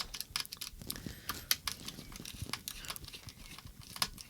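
Small screwdriver and fingers working on the plastic case of a handheld radio-control transmitter during disassembly: irregular light clicks and taps, with one louder click about four seconds in.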